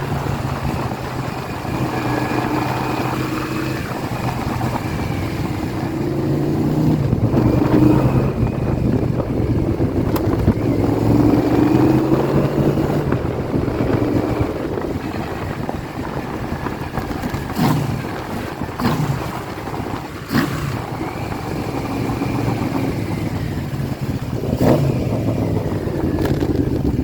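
Yamaha VMAX1200's V4 engine running, its pitch rising and falling as it is revved several times. A few sharp clunks come in the second half.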